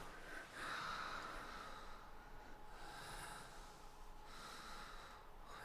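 A person's faint breathing: three slow breaths, spaced about a second and a half apart.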